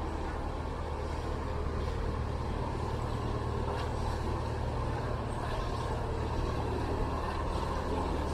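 Diesel engine of a small canal cargo boat running steadily, a low chugging hum.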